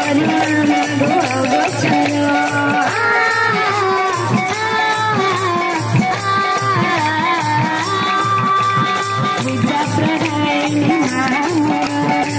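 Odia kirtan folk music: a held melody line that slides up and down in pitch over a steady drum beat and rattling hand percussion.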